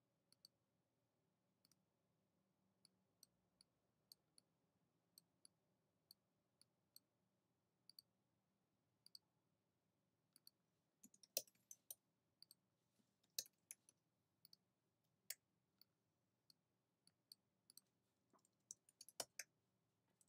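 Faint clicking of a computer mouse and keyboard: scattered single clicks and quick pairs, with louder quick runs of clicks a little past halfway and again near the end.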